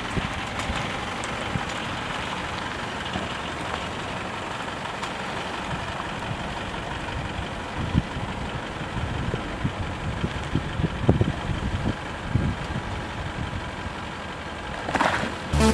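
A pickup truck's engine running as it reverses a boat trailer down a launching ramp, with uneven low surges in the second half. Near the end a rising whoosh leads into electronic music.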